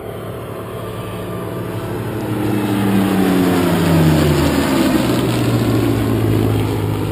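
Spitfire's V12 piston engine and a Belgian F-16's jet engine flying past together in close formation. The sound grows louder, peaks about three to four seconds in, and drops in pitch as the pair passes, then fades slowly.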